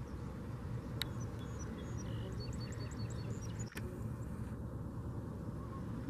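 Steady low outdoor rumble with a small bird chirping a quick run of short, high notes between about one and three and a half seconds in.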